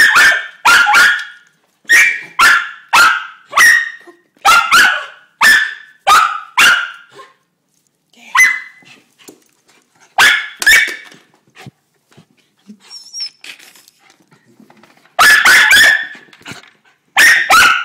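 Miniature schnauzer barking excitedly in quick volleys of short, sharp, high barks. There is a lull of a few seconds past the middle before two fresh rapid bursts near the end.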